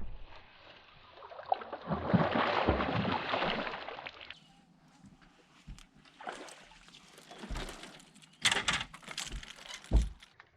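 Water sloshing and splashing: a couple of seconds of steady rushing noise, then scattered irregular splashes and knocks.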